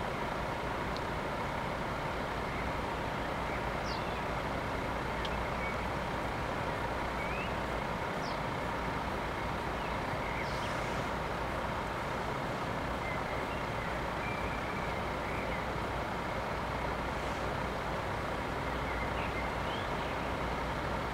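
Level crossing warning bells ringing steadily while the barriers are down, with a few short bird chirps over them.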